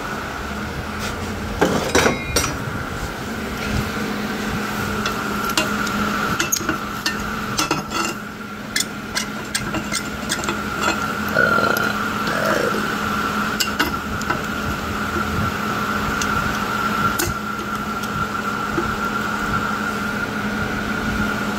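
Irregular metallic clinks and knocks of tools and a locking C-clamp being handled on a steel welding table, over a steady fan hum.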